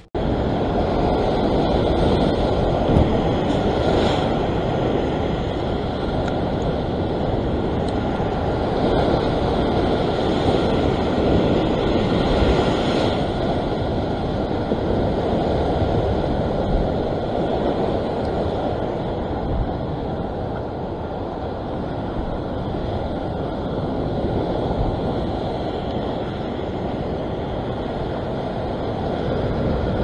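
Heavy surf breaking and washing over coastal rock ledges: a steady rushing of waves, swelling briefly as bigger sets hit, with wind noise on the microphone.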